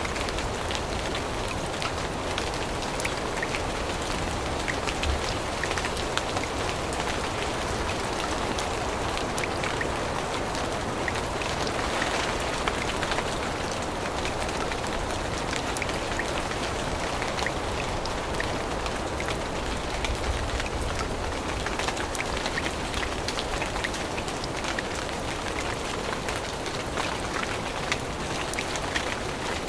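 Steady rain falling on forest leaves and the ground, with a constant patter of individual drops.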